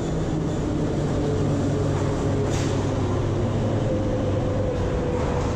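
Moscow Metro train running into the station along the platform and slowing, wheels and motors rumbling steadily under a faint whine that grows toward the end. A brief hiss comes about two and a half seconds in.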